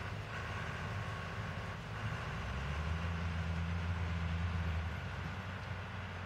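Farm machinery's diesel engine running with a steady low hum, which grows louder about two and a half seconds in and eases off again about five seconds in.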